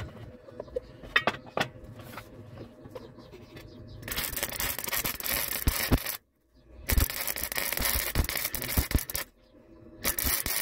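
MIG welder arc crackling as it welds a car exhaust pipe, in three runs of about two seconds each with short silent breaks, the first starting about four seconds in. Before that, only a few light knocks of handling.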